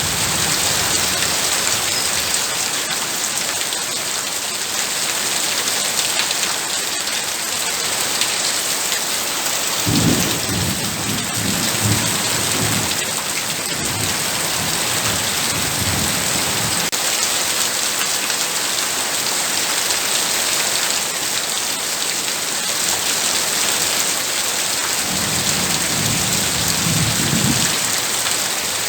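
Heavy rain falling steadily. Low rumbles of thunder come in about ten seconds in and last several seconds, then come again near the end.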